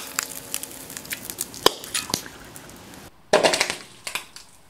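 Caesium metal reacting violently with water in a steel pan: a rapid string of sharp pops and crackles, with a strong crack a little under two seconds in and a louder burst of crackling a little over three seconds in.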